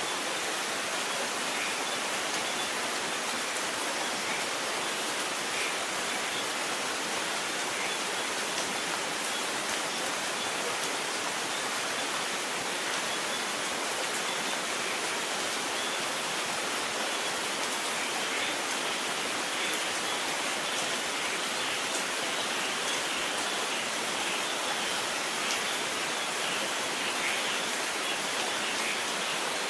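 Steady rain falling: an even hiss with faint scattered drop taps, and no thunder.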